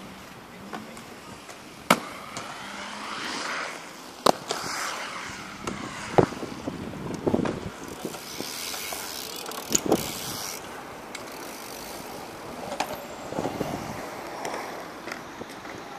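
BMX bikes riding a concrete skatepark: tyres rolling over the concrete, with several sharp knocks of bikes hitting the concrete, the loudest about 2, 4, 6 and 10 seconds in.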